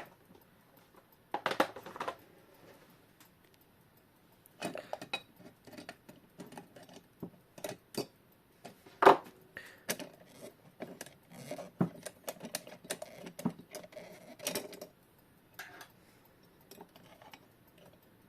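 Pliers and small metal parts clicking and knocking against a quartz clock's movement, irregular taps and scrapes with short pauses, as a stubborn standoff is worked loose.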